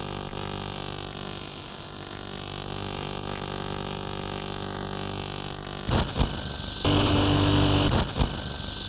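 Electronic soundtrack music: a steady droning hum of many held tones. About six seconds in it is broken by short loud bursts of harsh noise, then a longer loud noisy stretch near the end.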